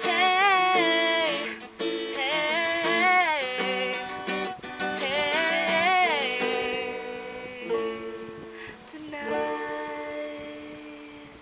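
A solo voice singing a wordless melody over strummed acoustic string accompaniment. The music fades away over the last few seconds as the song ends.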